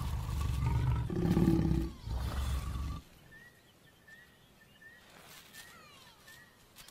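Lions growling and snarling at the end of a mating, deep and rough, which stops abruptly about three seconds in. Faint short bird chirps follow.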